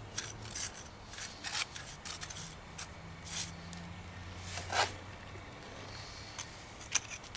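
Steel trowel and pointing tool scraping and clicking against stone as dry cement mortar is pushed into the joints between man-made stone step pieces: irregular, gritty scrapes and ticks.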